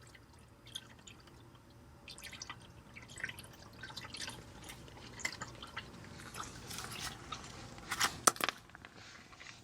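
Used engine oil dripping and trickling from the engine into a drain pan, a scatter of small irregular drips with a few sharper clicks near the end.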